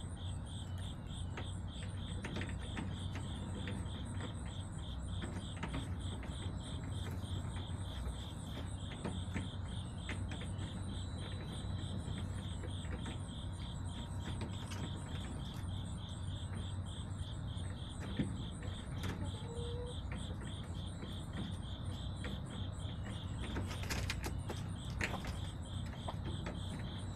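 Crickets chirping in a steady, even pulse throughout, over a low steady hum, with scattered soft clicks and a louder rattle of clicks near the end.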